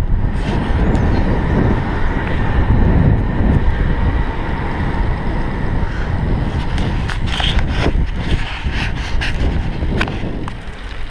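Wind buffeting the microphone of a bike-mounted camera, with tyre and road rumble from a road bike descending fast. Irregular clicks and knocks from the bike come in during the second half, and the noise eases near the end.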